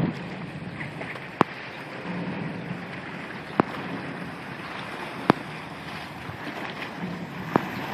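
Wind on the microphone over the low, steady running of a turning river boat. Four sharp clicks come at intervals of about two seconds.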